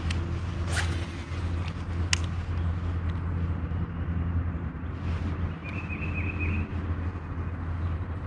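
A small motor hums steadily and low. In the first couple of seconds there are a swish and a few sharp clicks, and about six seconds in a faint wavering high tone.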